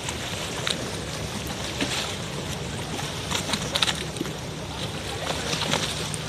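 Lagoon water lapping and slapping against moored gondolas, wooden mooring poles and the quay edge, with brief splashes every second or so. A steady low hum runs beneath it.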